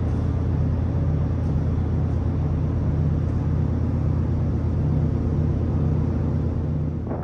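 Steady low machinery rumble with a slight throb about once a second, fading out at the very end.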